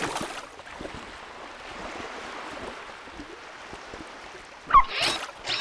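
Cartoon underwater sound effects: a splash, then a steady watery rushing hiss. Near the end comes a short pitched sound effect, followed by two sharp clicks.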